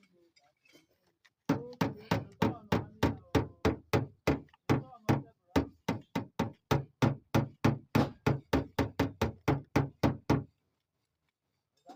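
A rapid, evenly spaced run of about thirty sharp knocks, about four a second, which stops abruptly.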